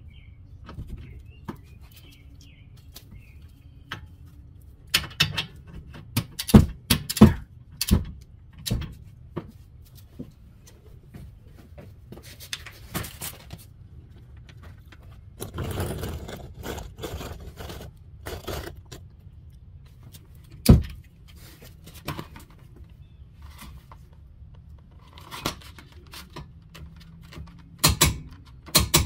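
Metal hand tools clinking, clicking and scraping as the brake pad support plate bolts are tightened and torqued: scattered sharp clicks, with busier runs of rapid clicking in the middle and two sharp clicks near the end.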